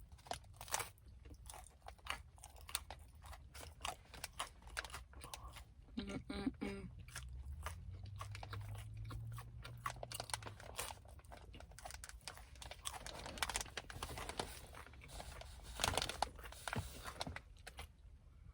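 A person chewing and crunching crisp food, with many short crunching bites.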